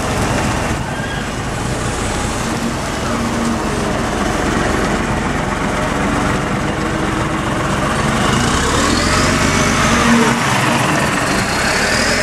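MCW Metrobus double-decker bus engine running as the bus drives past at close range and pulls away, with a rising whine in the second half as it picks up speed.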